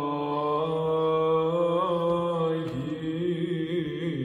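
Men's Byzantine choir chanting in English over a held drone note (the ison), with the melody moving above it in wavering ornamental turns.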